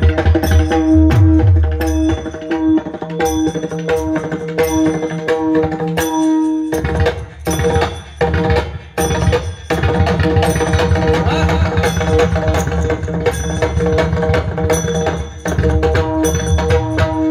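Instrumental passage of Marathi bhajan music without singing: held notes over a steady drum rhythm.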